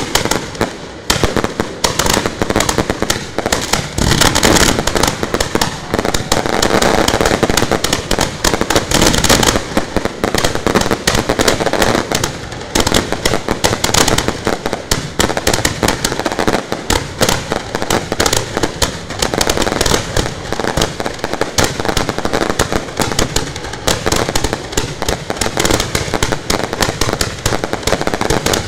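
Fireworks going off in ground launch racks at close range: a continuous, dense rapid crackle of cracks and bangs over a steady rushing hiss of spark jets.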